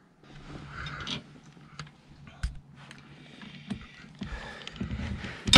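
Scraping and handling noise from hands working at the metal mounting frame under a recliner, with scattered small clicks and a sharp knock near the end.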